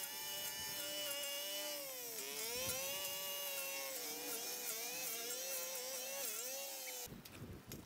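Small petrol-engined yard tool running at high speed with a whining note whose pitch sags and recovers several times as it takes load. It stops abruptly about seven seconds in.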